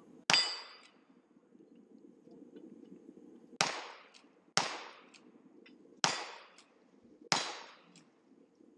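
Five gunshots from a cowboy action shooter firing at steel targets: one about a third of a second in, then after a pause of about three seconds, four more roughly one to one and a half seconds apart, each dying away in a short echo.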